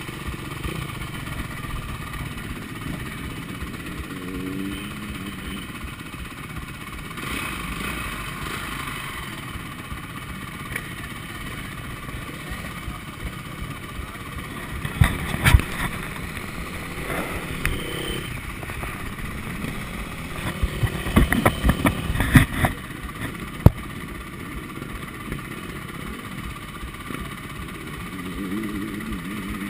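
Several motocross bikes idling close by, with a few short rising revs. Sharp knocks and rattles cut in briefly a little past halfway, twice in close clusters.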